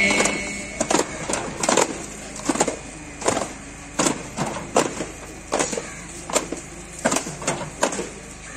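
Hand frame drums (daff) struck in a marching rhythm by a group of players: sharp, unevenly spaced beats about one to two a second, over a low steady background noise.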